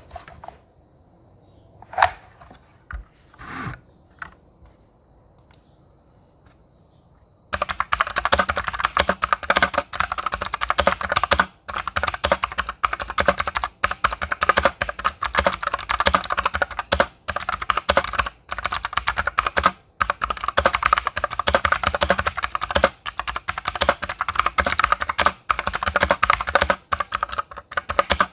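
Fast typing on a Magic Refiner MK14 mechanical keyboard with BSUN blue clicky switches. A few scattered key taps come first, then dense continuous typing starts about a quarter of the way in, with brief pauses now and then.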